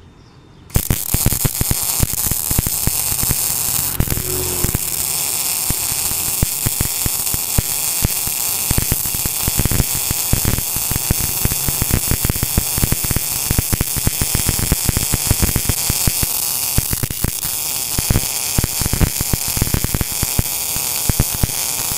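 Gas-shielded MIG welding arc from an NBC-288 welder feeding wire off a 15 kg spool, striking about a second in and then running as a steady, dense crackle while a continuous bead is laid along the steel joint.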